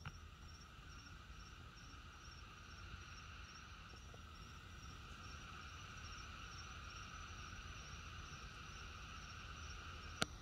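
Night insects chirring steadily, with a high, evenly pulsing trill over a lower continuous drone. A single sharp click near the end.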